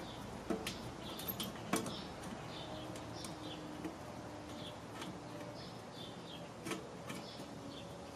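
A handful of sharp metal clicks and clinks at irregular moments as a metal ash catcher ring is pushed down and worked into place on a kettle grill's bowl, its tabs seating into the leg holders.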